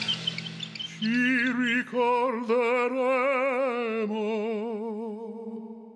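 Operatic male voice singing long held notes with wide vibrato over faint accompaniment, in an Italian-language opera parody; the last note thins and fades away near the end.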